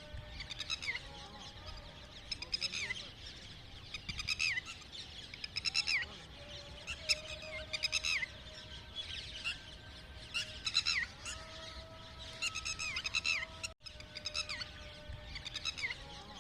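Red-wattled lapwing calling: repeated bursts of sharp, rapid notes that slide down in pitch, coming every second or two.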